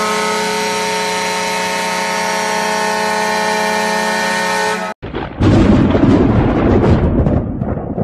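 Hockey arena goal horn giving one long, steady, low blast rich in overtones, which cuts off abruptly about five seconds in. A loud rumbling crash follows at once.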